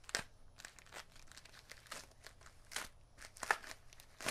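White packing wrap crinkling and tearing as it is cut and pulled off a wrapped bow part, in short irregular crackles with the loudest near the end.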